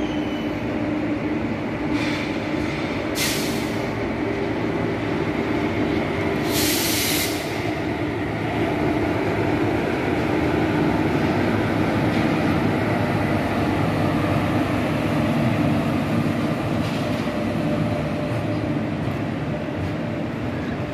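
Freight train hauled by a WAG-7 electric locomotive passing slowly: a steady rumble of wheels and wagons with a constant hum. Two brief high hisses come about 3 and 7 seconds in.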